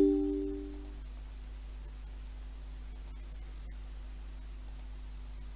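A couple of faint computer mouse clicks about three seconds in, over a low steady hum. A short two-note tone dies away within the first second.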